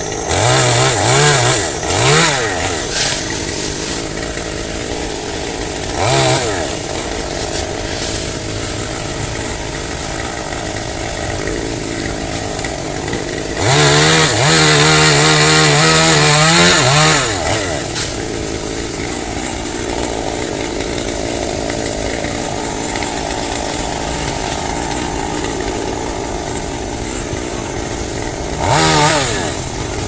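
Two-stroke chainsaw idling, blipped up to speed twice in the first few seconds and again about six seconds in. Near the middle it is held at full throttle for about four seconds against the trunk, then revved once more near the end.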